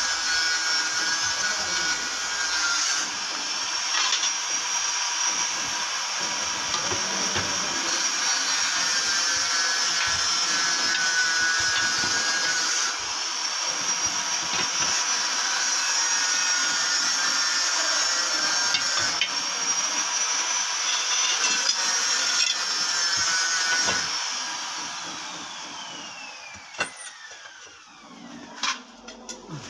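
An electric power tool's motor running with a steady high whine. About 24 seconds in it is switched off and winds down with a falling whine. A couple of sharp clicks follow near the end.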